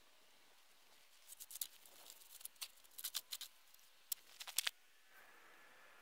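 Footsteps crunching in snow: a run of irregular crunches from about one to five seconds in.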